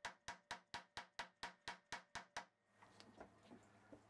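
Light hammer taps on a 12-inch-radius wooden caul held over a new fret, seating the fret wire into the fingerboard of a Greco SA-64-60 semi-acoustic guitar. About eleven even, sharp taps at roughly four a second stop about two and a half seconds in, leaving only faint scattered clicks.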